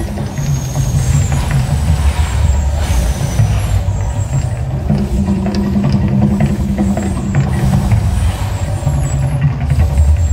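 Mirage volcano show erupting: a loud, deep rumble in shifting low tones from its sound system, with hissing rushes of gas flame jets firing.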